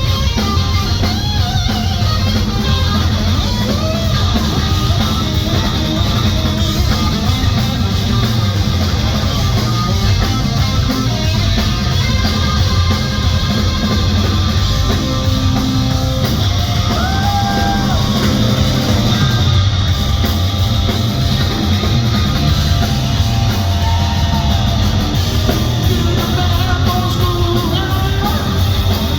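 Live rock band playing loud, electric-guitar-driven hard rock, with bass and drums and a voice singing or yelling at times.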